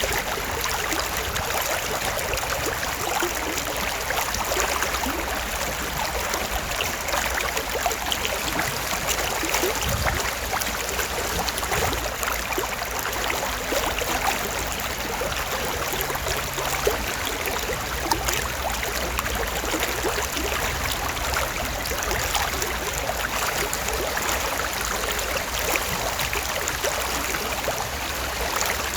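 Creek water flowing steadily, a dense, even babble and trickle.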